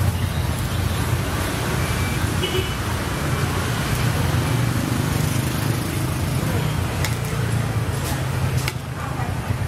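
Steady low rumble of street traffic. Near the end come a few sharp clinks, a metal ladle against a stainless steel bowl as snail meat and greens are tossed.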